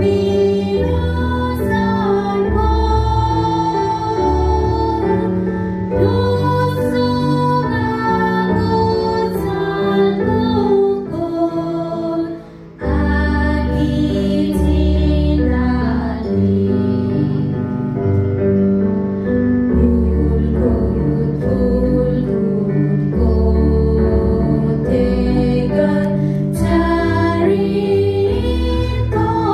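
A group of women singing together into handheld microphones over musical accompaniment with a strong bass, through a PA system. The music dips briefly about twelve seconds in, then carries on.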